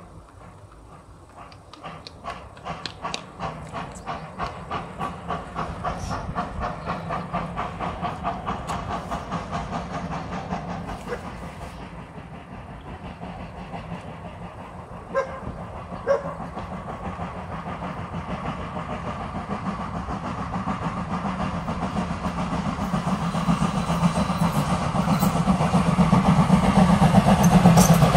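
Class 50 steam locomotive 50 3648-8 approaching under steam: its exhaust beats at about two to three a second, blurring into a continuous hiss and rumble that grows steadily louder as it nears. Two short whistle toots about a second apart come in the middle.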